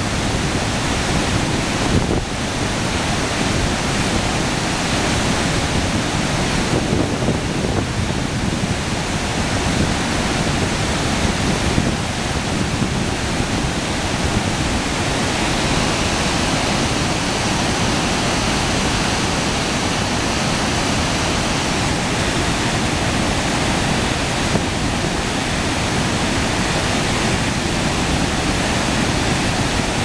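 Loud, steady roar of river rapids: heavy white water churning over and around boulders.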